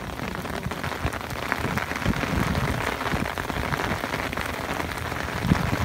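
Rain falling steadily, with many close drops ticking and some low thumps, a little louder from about two seconds in.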